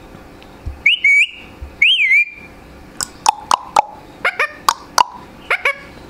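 Indian ringneck parakeet whistling twice in wavering notes, then giving a quick run of about ten short, sharp chirps.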